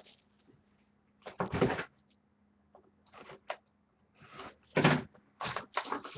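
Cardboard trading-card boxes being opened and handled: short bursts of cardboard scraping and rustling, with brief pauses between them.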